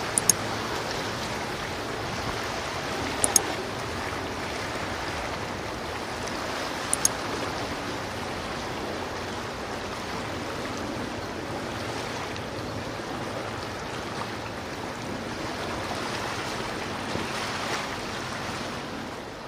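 Steady rushing water, like waves or the wash along a ship's hull, with three short sharp clicks in the first seven seconds.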